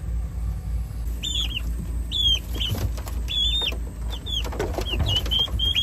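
Young turkey poults and chicks peeping: short, high-pitched calls that rise and fall, repeated several times a second from about a second in, over a steady low rumble.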